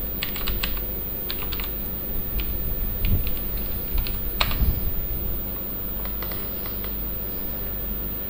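Computer keyboard keystrokes typing a search query in short irregular runs, with one sharper keystroke about four and a half seconds in and a few lighter ones later, over a steady low hum.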